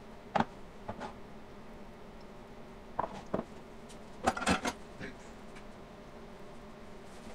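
Glass loaf pan handled and set down on a granite countertop: a few short knocks and clatters, the loudest cluster about four seconds in, over a faint steady hum.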